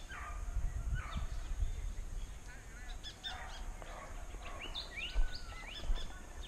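Several wild birds chirping and whistling in dry scrub, with many short rising calls, over a low outdoor rumble. A few low thuds about five and six seconds in are the loudest sounds.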